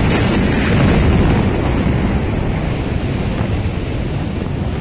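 Blast wave of a huge ammonium nitrate explosion rushing over a phone's microphone: a loud, wind-like roar with a deep rumble underneath that slowly fades.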